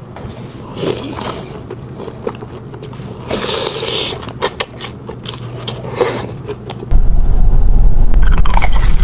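Close-miked mouth sounds of biting, crunching and chewing food, with sharp crackly crunches. About seven seconds in, a much louder steady low rumble suddenly starts and drowns them.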